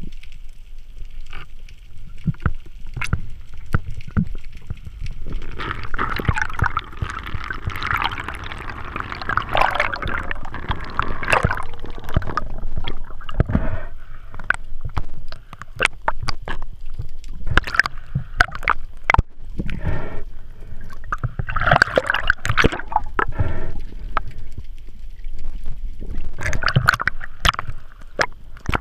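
Underwater sound heard through a GoPro's waterproof housing: muffled water movement and gurgling, broken by many sharp clicks and knocks. There are two spells of denser bubbly hiss, a long one about a fifth of the way in and a shorter one about three quarters of the way through.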